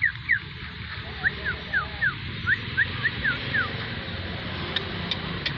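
Black-winged myna (jalak putih) calling: a run of about ten short whistled notes, alternately rising and falling in pitch, over the first four seconds, then a few sharp clicks near the end.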